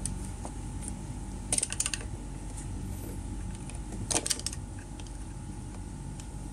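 Small screwdriver tightening a wire terminal screw on a wall light switch: two short bursts of clicking, about a second and a half in and again around four seconds in, against a steady low hum.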